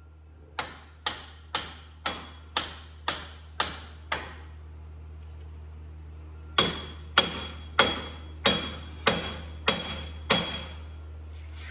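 Hammer blows on the steel front wheel hub of a Ford Explorer, knocking the rusted, seized hub bearing assembly loose from the knuckle. Eight blows about two a second, a pause, then seven harder blows that ring out metallically.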